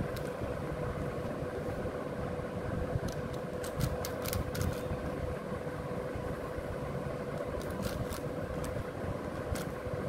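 Plastic 6x6 Rubik's cube being turned by hand: sharp clicks of its layers snapping round, in short runs a few seconds in and again near the end, over a steady background hum with a faint constant tone.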